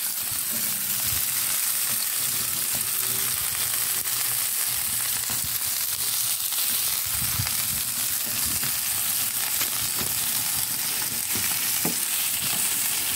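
Sausages sizzling on a hotplate over a wood fire, a steady frying hiss, with a few light clicks of metal tongs as they are turned.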